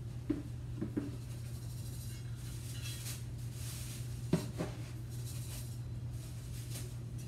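Cat litter being scooped with a metal scoop: the scoop scrapes through the litter and knocks against the plastic litter box a few times, the loudest knock about four seconds in, with rustling in between. A steady low hum runs underneath.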